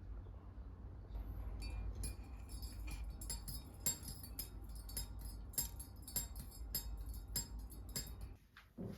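Light clinks and taps of glass or hard kitchenware being handled, a string of sharp clicks, some with a short ring, over a low steady hum.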